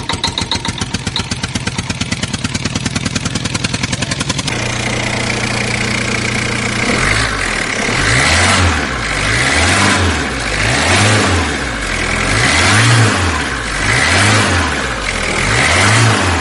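Engine sounds dubbed over toy vehicles: a tractor-like engine puttering in rapid, even beats, switching after about four seconds to a heavier truck engine that runs and revs, rising and falling about once a second.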